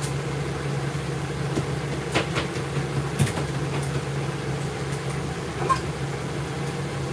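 Steady low machine hum, like grooming-room air conditioning or a generator running, with a few light clicks and knocks as the grooming table is wiped down.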